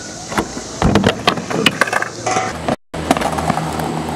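Skateboard clacking and rattling on a skatepark quarter pipe: a quick run of sharp clacks and knocks, loudest about a second in. Near the end of the third second the sound cuts out abruptly and a steady low hum takes over.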